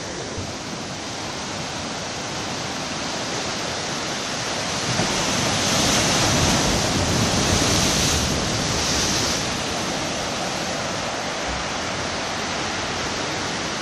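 Ocean swell breaking against breakwater blocks and rocks, a steady rush of surf that swells louder in the middle as a larger wave crashes and foams over the stones, then eases back.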